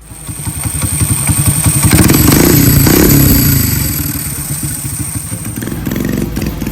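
A small combustion engine running with rapid firing pulses, revving up about two seconds in and dropping back after three seconds, with a steady high whine until near the end.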